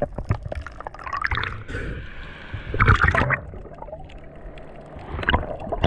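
Water gurgling and bubbling around a submerged camera in shallow surf, irregular and noisy, with a louder surge about three seconds in and a shorter one near the end.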